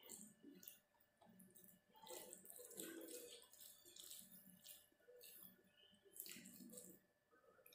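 Fingers squishing and mixing basmati rice into chicken curry gravy on a steel plate: faint, irregular wet squelches.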